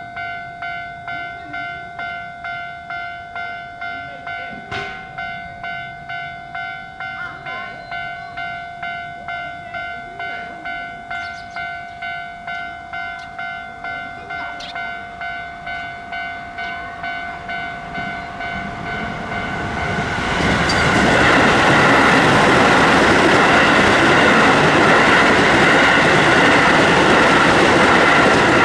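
Level-crossing warning bell ringing in an even, steady rhythm. About two-thirds of the way through, a Keio Line electric train passes over the crossing; its loud running and wheel noise drowns the bell, then falls away near the end.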